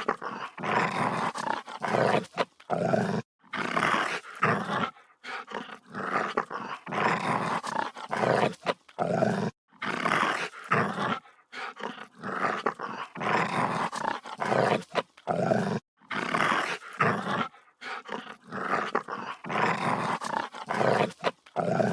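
Dog growling aggressively in a long series of rough snarls, each lasting from about half a second to two seconds, with short breaks between them.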